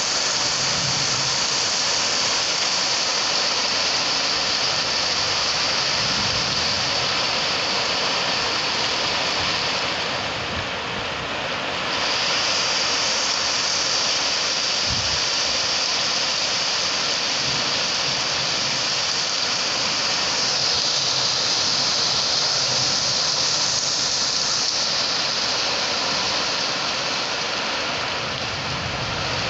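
Heavy rain falling steadily on roofs and pouring off a metal awning in a windy storm, with a slight easing about ten seconds in and again near the end.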